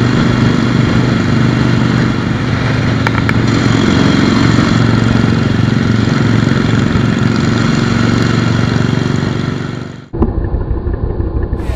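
Harley-Davidson Forty-Eight's air-cooled 1200 cc V-twin running steadily while cruising on the road. Near the end the engine sound fades out and is cut off by rock music.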